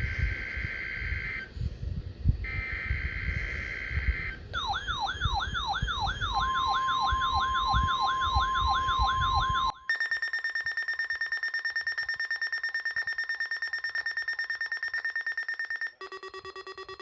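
Weather radio receivers sounding their alert alarms for the warning-alarm test. It opens with a long beep repeating about every three seconds. From about four seconds in comes a warbling, siren-like alarm at about three sweeps a second, joined by a steady high warning-alarm tone. Near ten seconds in it switches to a fast-pulsing electronic alarm, which shifts pitch near the end.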